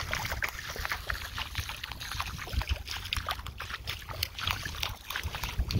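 Irregular splashing of footsteps through shallow water over wet sand, with wind rumbling on the microphone.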